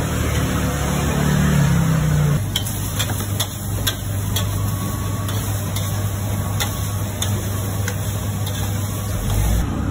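Metal spatula clanking and scraping against a wok as the cook stir-fries, with a dozen or so sharp clinks at irregular intervals from about two seconds in, over a steady low hum.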